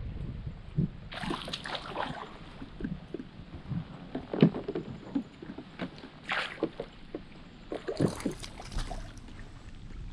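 Water splashing and sloshing beside a kayak as a hooked fish is played close to the boat, with scattered short knocks and several louder splashes about a second in, a little after six seconds and around eight to nine seconds.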